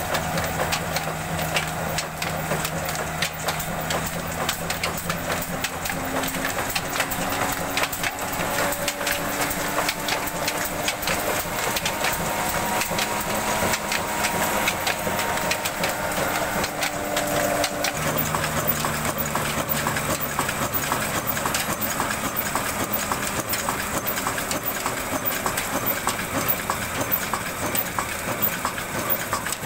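Old Ruston Hornsby horizontal diesel engine running steadily under load, belt-driving a chakki flour mill, with a rapid mechanical clatter throughout.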